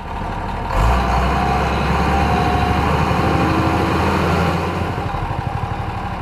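Vehicle engine running with a fast, even low chugging. It starts abruptly and gets louder about a second in.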